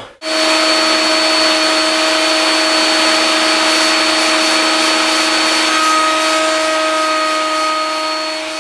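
Table-mounted router running at full speed with a corner lock joint cutter as a drawer front's end is pushed through the cut: a steady high motor whine over a rushing noise, cutting in just after the start and holding level.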